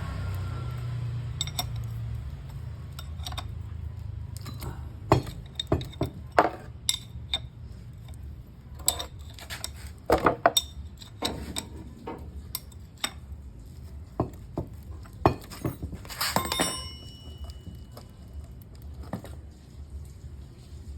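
Metal hand tools clinking and tapping against a truck differential's steel bolts and adjuster locks as they are tightened, in irregular sharp clinks with louder clusters about halfway through and again near the end. A low rumble fades out in the first few seconds.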